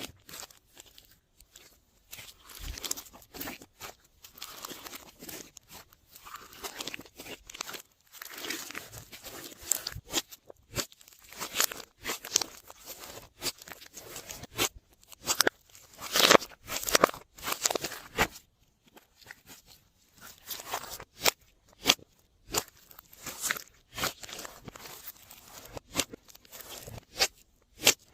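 Glossy slime being mixed and squished by hand, giving irregular sticky clicks and pops with brief pauses between handfuls.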